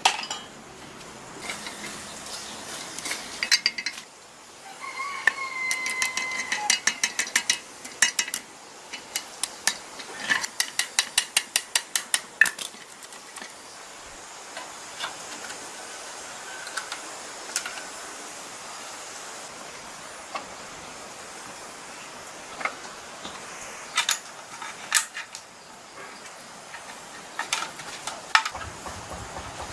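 Hand tools working on metal engine parts: scattered clinks and knocks, with quick runs of ratchet-like clicking, the longest about ten seconds in, and a brief squeak about five seconds in.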